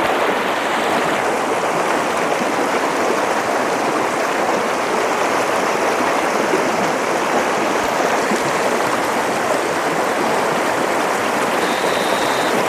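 Steady rush of a small mountain creek's water running over rocks.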